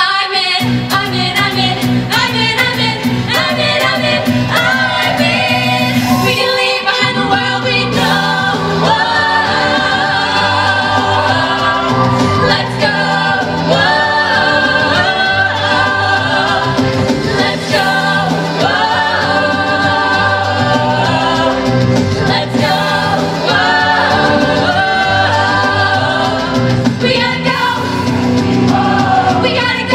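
Mixed show choir singing in full voice over an instrumental accompaniment with a steady bass line. The bass drops out briefly about seven seconds in, then the song carries on.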